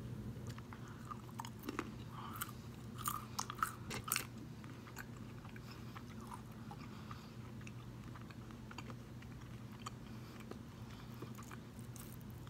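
A person chewing a mouthful of walnut pieces, with crisp crunches clustered in the first four seconds and softer, sparser chewing after.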